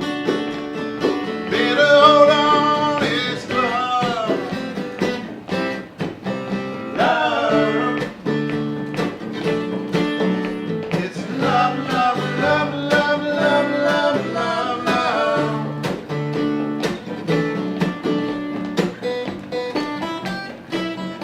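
Acoustic band music with no lyrics: guitar strumming a steady rhythm under a higher lead melody that bends in pitch and comes in three phrases.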